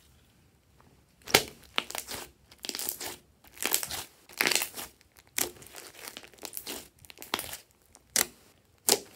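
A thick slime mixed with clay being kneaded and pressed by hand: irregular wet squishes and sharp crackling pops, starting about a second in.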